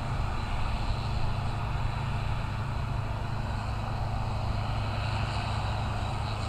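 Large diesel farm machinery running steadily: a constant low engine drone with an even mechanical rush over it.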